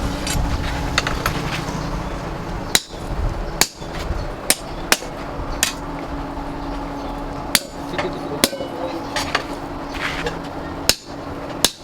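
Hammer blows on steel being forged: about nine sharp strikes at an irregular pace, roughly one a second, with pauses between groups. A steady low hum runs underneath.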